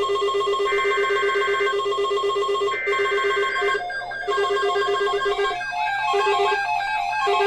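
Emergency Alert System SAME header over radio: two one-second bursts of warbling digital data tones about a second apart. Steady and pulsing electronic tones run under them, giving way to a shifting melodic tone pattern from about four seconds in.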